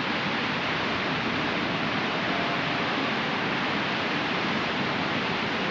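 Waterfall in flood, a heavy volume of water pouring down: a steady, even rushing.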